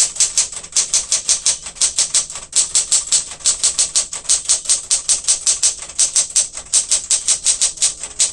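1967 Smith-Corona Super Sterling manual typewriter being typed at a steady, even rhythm of about five or six keystrokes a second, the typebars clacking against the platen.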